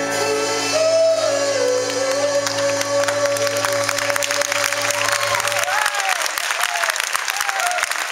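A male singer holds one long final note into a microphone over sustained accompanying chords, which end about six seconds in. An audience starts applauding about three seconds in, and the clapping grows, with a few whoops over it near the end.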